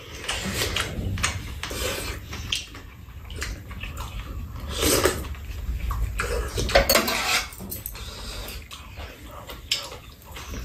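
Eating at the table: spoons and chopsticks clicking against ceramic bowls, with a few short bursts of soup being slurped and chewing about halfway through.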